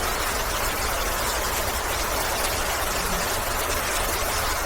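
Steady background hiss with a low rumble underneath, unchanging, with no distinct events.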